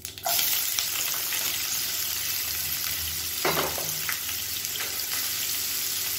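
Sliced onions hitting hot tempering oil in a pan: a loud sizzle starts suddenly a fraction of a second in and then carries on steadily as they fry.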